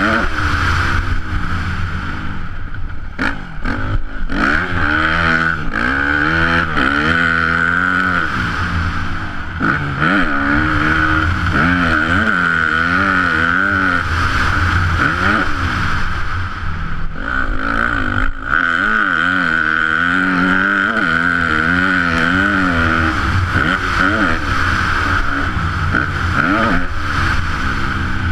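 Yamaha YZ250F four-stroke single-cylinder motocross engine at full riding load, its pitch rising and falling over and over as the throttle is opened and closed, with short drops about three seconds in and again around the middle. A strong steady low rumble runs underneath.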